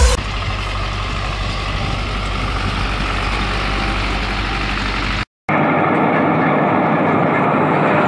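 Farm tractor diesel engines running steadily close up. About five seconds in there is a brief break, and then a second tractor, a Fendt, runs louder and rougher.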